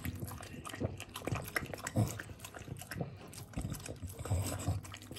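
French bulldog eating from a plastic bowl, with irregular wet chewing and gulping noises.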